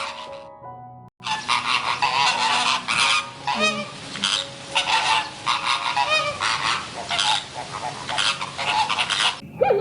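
Birds honking: a flock giving harsh, repeated honking calls, two to three a second, after a brief break about a second in.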